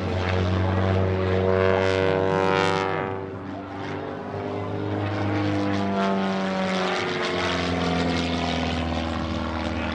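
Christen Eagle aerobatic biplane's 200 hp Lycoming AEIO-360 engine and propeller running under power during aerobatics. The engine note shifts in pitch a few times as the plane manoeuvres, dipping in loudness about three and a half seconds in before picking up again.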